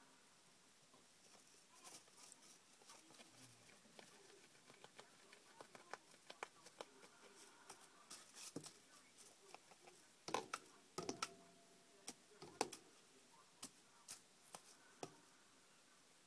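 Cardboard toilet-roll tube being tossed and nudged about by a rabbit on hay bedding: a scatter of light taps and rustles, with a few louder knocks a little past halfway.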